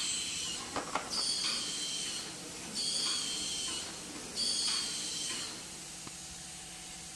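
Automatic cellophane box wrapping machine running through its cycle: a hiss with a high whistling tone about a second long comes back every second and a half or so, four times. A few sharp crackles come about a second in.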